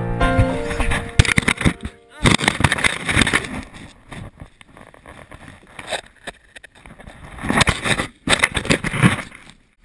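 Snowboard run heard through an action camera's microphone: irregular rough scraping and buffeting, with crackling bursts as snow hits and packs against the camera housing in a fall. Piano music ends in the first half-second, and the sound cuts off abruptly just before the end.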